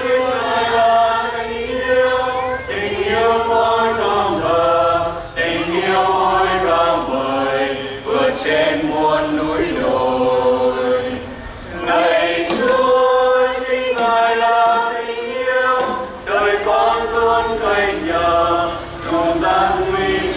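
Church choir singing a slow hymn in Vietnamese, long held notes in phrases with short breaths between them.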